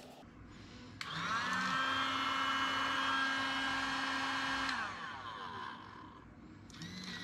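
Shop vacuum motor switching on about a second in with a rising whine, running steadily for about four seconds, then switching off and winding down. Near the end it starts up again.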